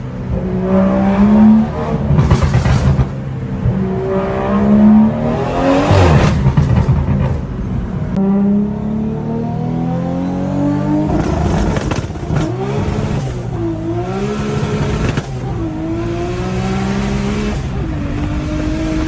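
Inline-six car engine revving and accelerating, its pitch repeatedly climbing and dropping back as through gear changes. About eight seconds in, the sound switches to a different recording of an engine pulling, with a steadier rising note.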